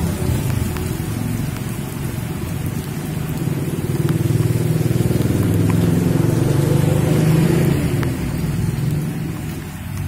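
A car drives past on a wet road, its engine and tyres loudest a little past the middle, over steady rain.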